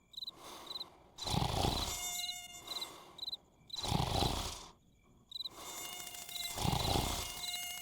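Cartoon night-time insect sound effect: cricket-like chirps in short groups. A louder rushing sound swells and fades three times, about every two and a half seconds.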